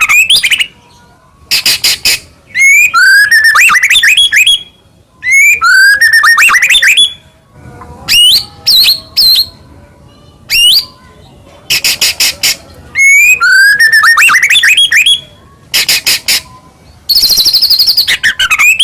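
White-rumped shama (murai batu) singing loud phrases: rising whistled notes alternate with bursts of fast, dry rattling clicks (the 'kretek'). The phrases come with short pauses between them, and some recur almost identically.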